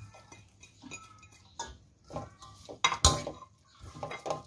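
Metal spatula scraping and clinking against a wok while tossing sliced pork with fresh herbs, a string of irregular knocks and scrapes, loudest about three seconds in.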